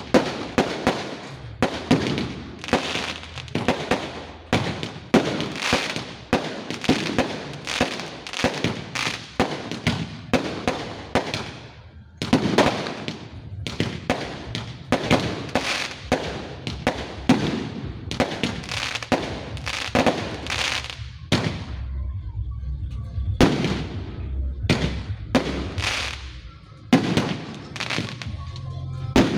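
Fireworks going off one after another, a dense run of cracks and bangs for about the first twelve seconds, then sparser bangs over a low rumble.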